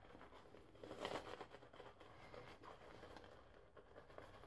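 Faint swishing and crackling of a shaving brush working Mitchell's Wool Fat soap into a lather on the face, a little louder about a second in.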